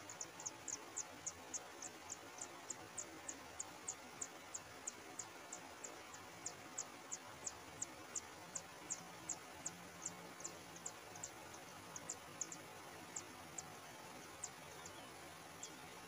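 Kacer air nestlings begging as the parent feeds them: a quick series of short, very high, thin chirps, about three a second, thinning out near the end, over a faint steady hiss.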